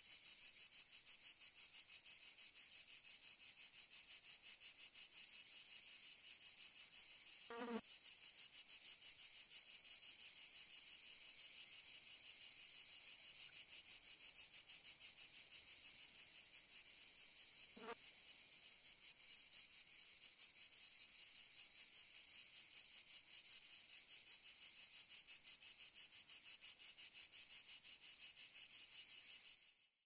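Cicadas buzzing: a steady high, finely pulsing insect drone. Two faint short sounds come about 8 and 18 seconds in, and the drone cuts off just before the end.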